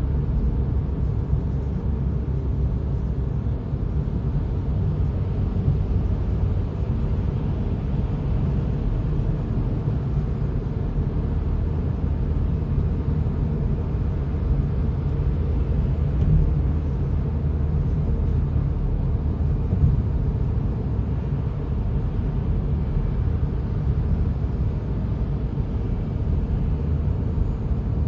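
Steady low rumble of a car driving along the road, engine and road noise without let-up.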